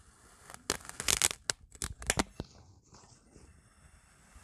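Metal cake server slicing down through packed kinetic sand: a quick run of crisp crunches starting about a second in, then a few separate crunches.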